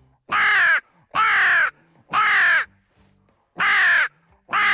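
CMS Nasty Crow mouth-blown crow call imitating hooded crow caws: a run of three raspy, downward-falling caws, a short pause, then two more. It is blown with a chest-driven rasp and a cupped hand opening and closing over the call for back pressure.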